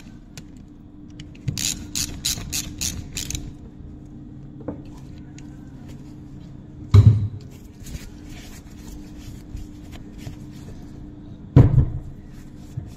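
Workshop handling of a front differential on a wooden bench: a quick run of about eight sharp clicks, then two heavy thumps, the second about four and a half seconds after the first, as the aluminium differential housing is turned and set down. A steady low hum runs underneath.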